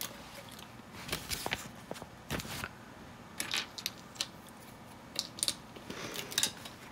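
Plastic LEGO bricks clicking as they are picked from a loose pile and pressed onto a round plate: scattered light clicks and small rattles, a few at a time.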